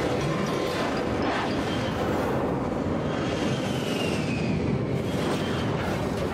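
Cartoon sound effect of a vehicle's engine: a steady rumble throughout. About three seconds in, a jet's whistling whine falls slowly in pitch and fades over a couple of seconds as the jet flies past.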